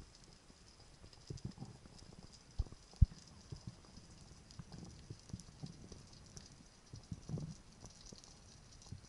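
Spearfishing gear heard underwater: irregular muffled knocks and thuds as the spear shaft, with a speared moray eel on it, and the speargun are handled near rock. A sharp knock comes about three seconds in, over a faint steady high crackle.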